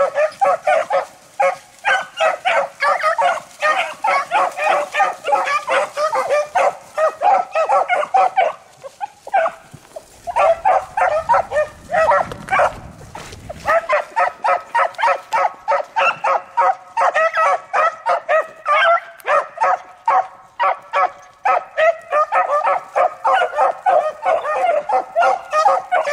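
A pack of beagles baying while running a rabbit's scent track: a rapid, overlapping chop of barks from several hounds that goes on almost without a break, pausing briefly about nine seconds in.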